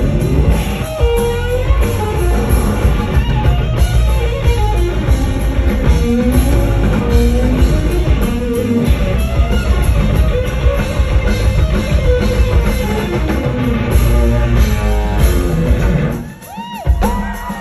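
Live rock band playing loud, with electric guitar out front over bass and drum kit and little or no singing, recorded from the crowd. The band drops away briefly near the end.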